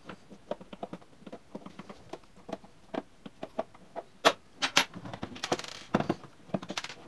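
Rapid small metallic clicks and ticks of a 4 mm L-shaped key turning in the side screw of a Krups Nespresso coffee maker's plastic housing. A few louder clicks and a knock come in the second half as the side panel is handled.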